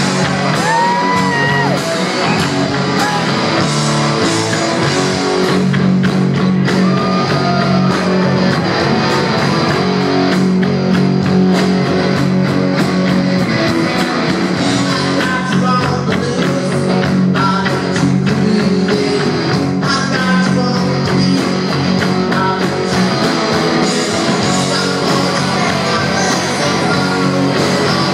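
Live rock band playing loudly: electric guitars and drums, with a singer's voice over them.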